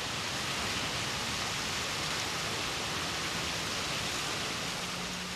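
Water gushing steadily through the open sluices of wooden canal lock gates and splashing into the lock chamber: the lock is being filled.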